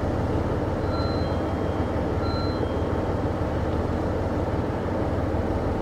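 Diesel engine of a KiHa 75 series railcar idling at a standstill: a steady low drone.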